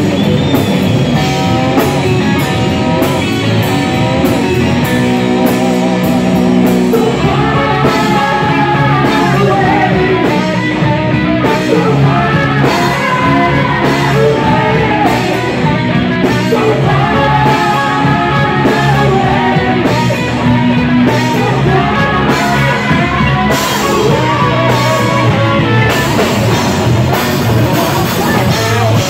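Live rock band playing loudly: distorted electric guitars, bass guitar and a drum kit.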